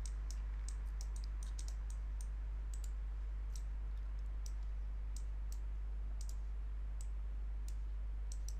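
Computer mouse clicking now and then, a few quick clicks at a time at irregular spacing, over a steady low electrical hum.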